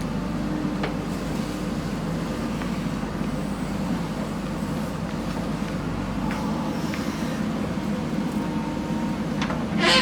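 JCB backhoe loader's diesel engine running steadily while working soil, with a few faint clicks and a short loud hiss near the end.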